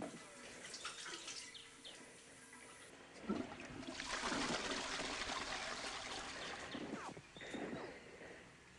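Water running for about three seconds, with small knocks and clicks before it.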